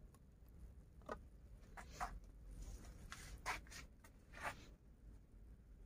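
Several faint, brief scratchy rustles, about a second apart, over quiet background.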